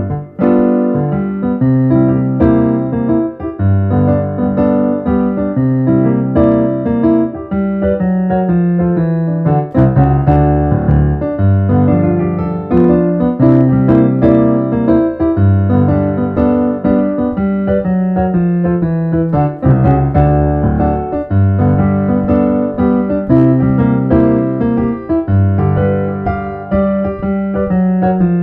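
Piano theme music for a show's opening titles: repeated chords over a bass line at a steady pace.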